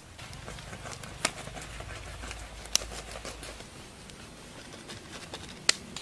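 Crisp roasted crocodile meat and skin being handled and torn apart by hand: a soft crackling, with three sharp snaps spread through it.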